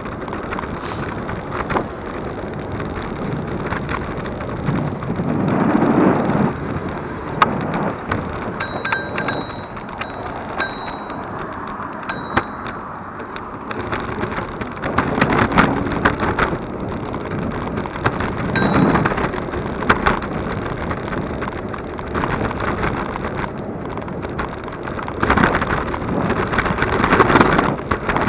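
Electric scooter riding along a street: steady road and wind noise from the wheels and the moving microphone. A handlebar bell is rung in a quick run of dings from about eight to twelve seconds in.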